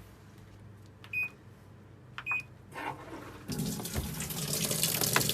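Sharp washing machine's control panel beeping twice, a second apart, then about three and a half seconds in water starts rushing into the machine through the inlet valve and keeps running steadily as it fills.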